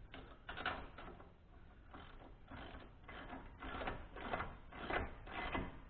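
Socket ratchet clicking in a series of short, irregular strokes, tightening a new spark plug into the cylinder head of a Kohler K241 engine.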